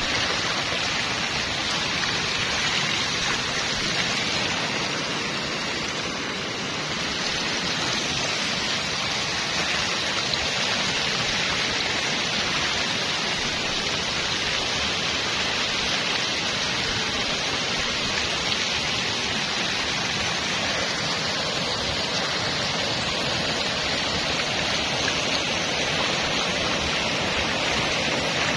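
Steady hiss of water, even and unbroken, dipping slightly about six seconds in.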